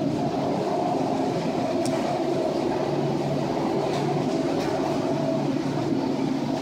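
Steady rumbling din aboard a small tanker ploughing through a storm: the ship's engine hum mixed with wind and the sea breaking over the bow, with no single loud crash standing out.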